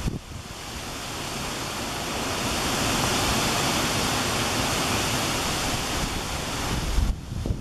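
A gust of wind rushing through the trees: a steady rushing hiss that swells over a few seconds, holds, then eases and cuts off suddenly near the end, with wind rumbling on the microphone underneath.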